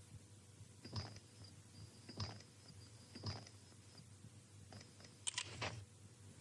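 Three slow boot footsteps on a wooden floor, about a second apart, each with a short high metallic ring after it, then a quick cluster of sharp clicks about five seconds in.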